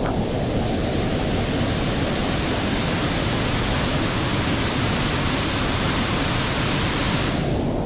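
Waterfall water rushing steadily close by, a dense even hiss over a low rumble. The brighter part of the hiss cuts in suddenly at the start and falls away near the end.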